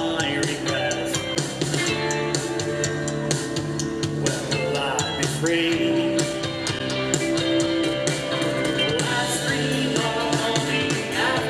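Live rock band playing a song: electric bass, electric guitar and drum kit with steady cymbal hits.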